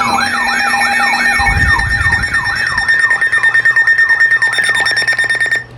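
Electronic emergency siren on a fast yelp: a quick sweep sliding down in pitch, repeated about two and a half times a second over a steady high tone. Everything cuts off suddenly near the end.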